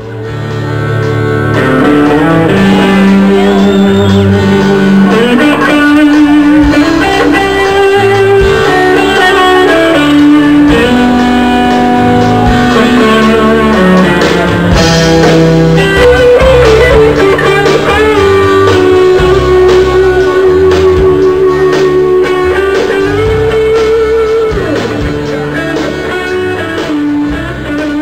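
A rock band playing live, an electric guitar leading over a bass line.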